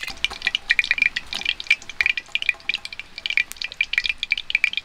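Mustard oil heating in a kadai over a wood fire, crackling with rapid, irregular pops.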